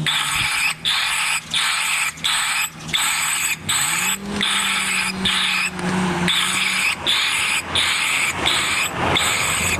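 An acoustic bird repeller's loudspeaker plays a recorded bird distress call, harsh cries repeated about twice a second. Under them runs a low engine hum that rises briefly a few seconds in.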